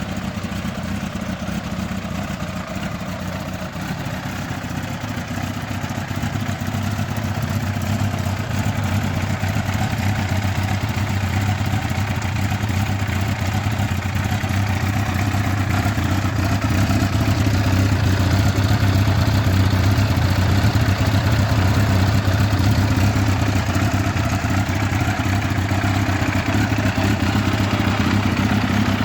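1997 Yamaha YZF1000R Thunderace's inline-four idling steadily through a Black Widow 300mm stainless aftermarket exhaust, the note growing somewhat louder over the first several seconds.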